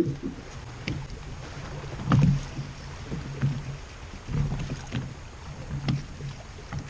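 Wind and choppy water washing against a small fishing boat, a rumble that swells and eases every second or so, with a few light clicks.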